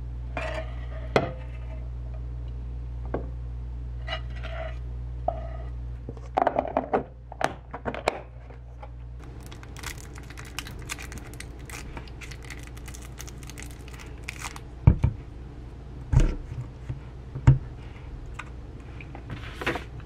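Glass food-storage container and its lid clicking against a countertop over a steady low hum. Then the plastic wrapper of a juice box's straw crinkling and tearing, with a few knocks on the table.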